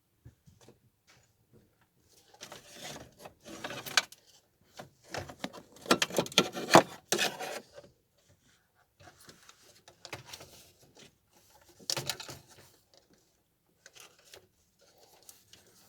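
Hands working on plastic dash parts and wiring: irregular bursts of rubbing, rustling and clicks, loudest about six to seven seconds in and again at about twelve seconds.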